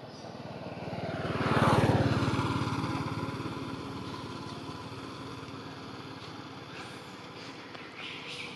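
A motor vehicle drives past. Its engine swells to a peak about two seconds in and falls in pitch as it passes, then fades away over several seconds.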